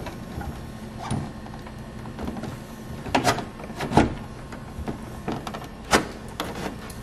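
The plastic grille of a 2009–2014 Ford F-150 creaking and scraping as it is pried and worked loose from its retaining clips, with several sharp clicks, the loudest about four and six seconds in.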